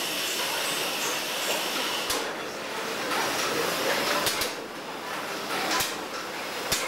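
Paddle steamer's engine running in the engine room: a steady mechanical hiss and whir, with an occasional sharp knock a few times.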